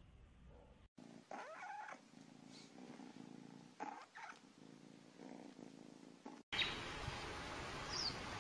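Kitten meowing: one longer meow about a second in and two short meows around four seconds in. Then a louder, steady hiss of noise takes over.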